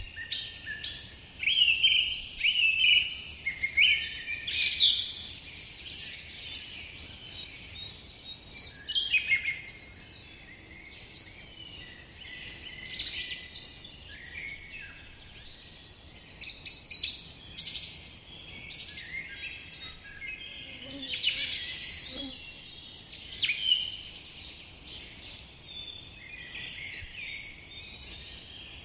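Birds singing and chirping in repeated bursts of high whistled phrases, with short pauses between bouts, over a faint steady outdoor hiss.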